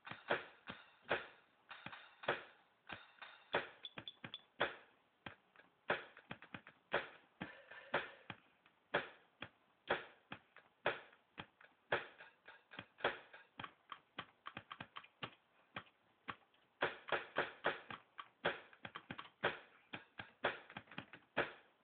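Drumming: a fast, uneven run of sharp, light taps in shifting patterns, with a thinner stretch of softer hits about two thirds of the way through.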